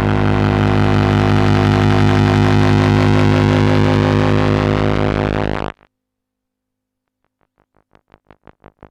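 Electronic music: a loud, steady, buzzy drone with many overtones that cuts off abruptly a little over halfway through. After a moment of silence, a faint rapid pulsing, about four beats a second, fades in near the end.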